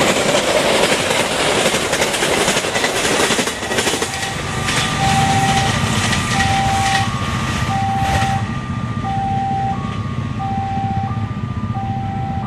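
A train passing at speed, with rattling wheel-and-rail noise that dies away over the first few seconds. From about four seconds in, the level crossing's new warning siren sounds a two-tone signal: a high and a low note take turns, each about half a second, over a low rumble.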